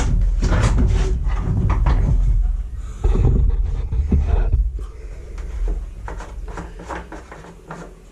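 Clicks, knocks and rattles as the plastic Echo 4500 backpack leaf blower is handled and its fuel tank checked, with heavy low bumps of handling noise, densest in the first half.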